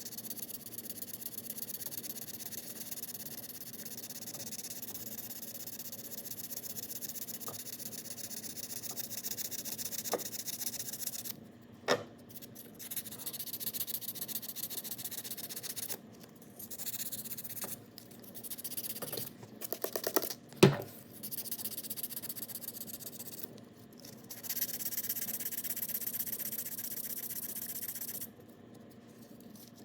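Fine 800-grit sandpaper rubbing on the cured JB Weld filling the seal groove of an outboard propeller shaft, smoothing the repair. The rubbing comes in spells with short pauses, and a sharp knock sounds about two-thirds of the way through.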